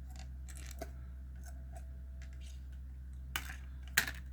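Faint clicks and light taps of small parts being handled, with a sharper click about four seconds in, over a steady low hum.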